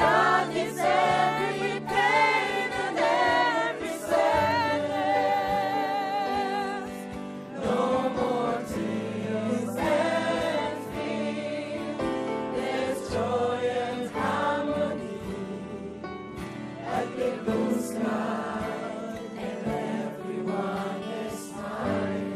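A group of singers performing a slow, gospel-style song with instrumental accompaniment. A few seconds in, a long note is held with vibrato.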